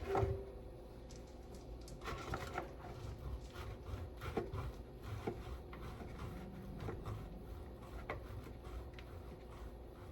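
Cheese being grated by hand on a cheese grater: a knock at the start, then from about two seconds in a run of uneven scraping strokes.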